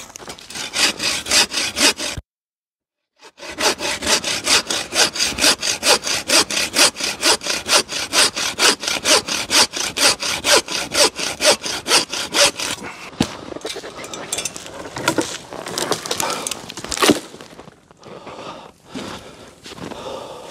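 Hand bow saw cutting through wood in fast, even back-and-forth strokes, about two or three a second, broken by a short gap about two seconds in. In the last third the steady sawing gives way to irregular scraping and knocks, with one sharp crack.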